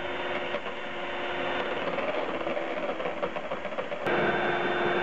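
Electric hand mixer running steadily, its beaters whipping cream in a plastic tub. About four seconds in the sound changes abruptly to a steadier, higher hum.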